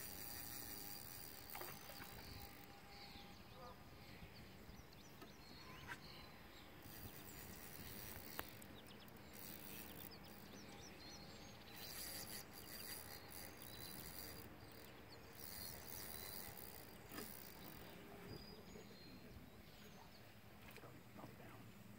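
Near-silent outdoor ambience over still water: a faint low background with faint insect and bird chirps, and a few soft clicks or knocks, the clearest about eight seconds in.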